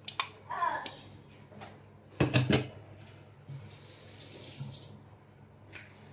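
Mixer-grinder jar and steel spoon knocking against a ceramic bowl as thick mint chutney is tapped and scraped out: a few sharp clinks, the loudest a quick cluster about two seconds in, with a soft hiss in between.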